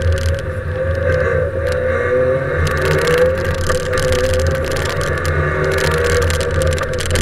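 Fiat rally car's engine running hard under load, heard from inside the caged cabin, its revs wavering up and down, over tyre and road noise from a wet road. Two spells of brighter hiss come about three and six seconds in.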